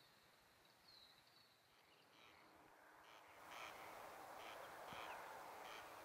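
Faint outdoor quiet with a few thin bird chirps. From about three seconds in there is a soft hiss and a short animal call repeated roughly every half second.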